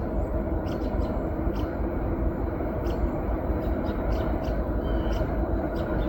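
Diesel-led freight train passing close by: a steady low rumble of locomotives and wheels on the rails, with short sharp clicks every fraction of a second.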